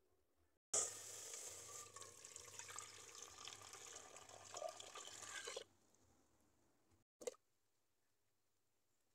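Coconut milk poured in a thin stream into a metal pot of chopped green papaya. The pour runs for about five seconds, stops suddenly, and is followed by a brief click.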